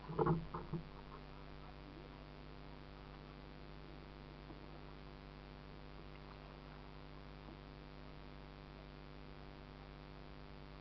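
Steady electrical hum made of several fixed tones: the recording's own noise from a small camera mounted on a kayak. A short spoken word or two sounds near the start.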